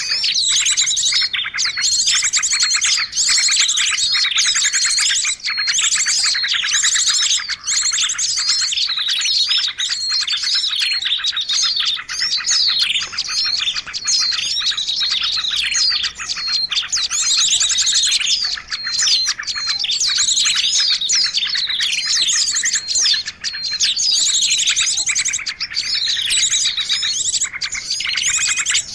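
Bird song used as a lure call: dense, unbroken chirping with fast, quick-sweeping whistled notes.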